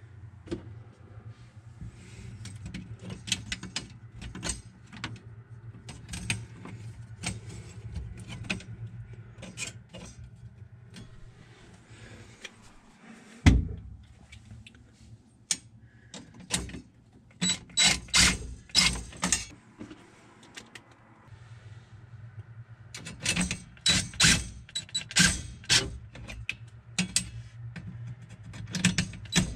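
A DeWalt cordless impact driver, run in short trigger bursts as it drives screws, with the clicks and clatter of screws and parts being handled. The bursts come in two clusters, about halfway through and again near three-quarters of the way, and there is a single sharp knock shortly before the first cluster.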